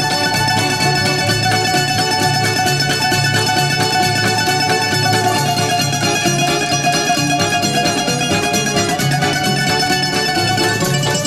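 Greek bouzouki instrumental music: a bouzouki plays a plucked melody over a steady, repeating bass and rhythm accompaniment.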